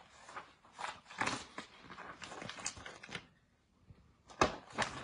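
Large picture book being handled and its pages turned, with paper rustling in bursts and then two sharp knocks near the end.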